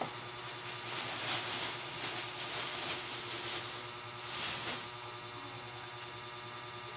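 Rustling handling noise in two stretches, a longer one about a second in and a short one near four and a half seconds, over a steady low hum.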